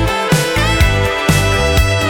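Background music with a steady beat and instruments such as guitar.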